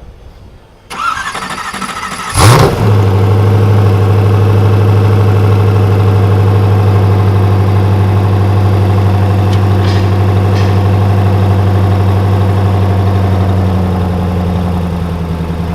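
A supercar engine starting. The starter cranks for about a second and a half, then the engine catches with a loud, quick rev flare and settles into a steady idle.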